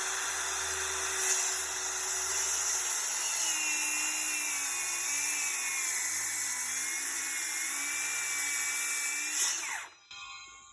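DeWalt cordless circular saw running at full speed, then cutting through a rough-cut 2x6 board from about three seconds in, its pitch dropping and wavering under the load of the cut. It winds down and stops shortly before the end.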